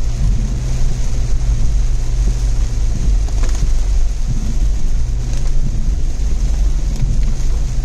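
Steady low rumble of a moving vehicle: engine hum and road noise while driving.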